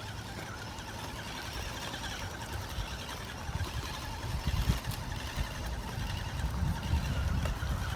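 Axial SCX10 Deadbolt RC crawler's electric motor and gear drivetrain whining as it creeps along the trail, the pitch wavering with the throttle, over a low rumbling noise that grows louder in the second half.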